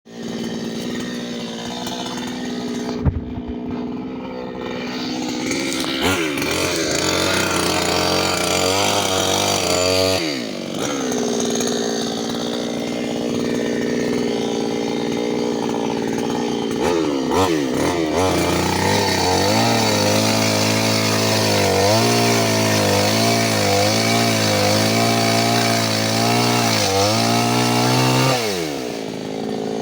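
New West 598X two-stroke chainsaw running and being revved up and down several times, its engine note wavering through the second half, with the revs falling away near the end. A single sharp click sounds early on.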